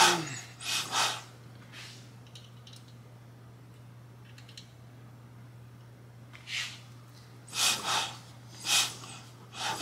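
A person's short, noisy breaths close to the microphone, a few in the first second and several more near the end, with a quiet stretch between, over a steady low hum.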